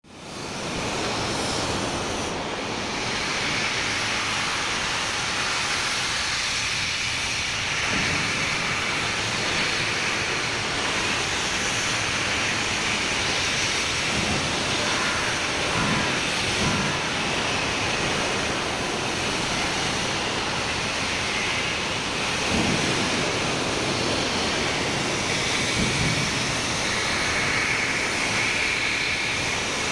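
LMS Black Five steam locomotive 44932 hissing steam loudly and steadily as it reverses slowly, with a few low thuds in the second half.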